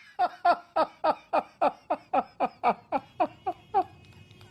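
A fast, even run of laughter, about four "ha" pulses a second, each one falling in pitch, stopping about four seconds in.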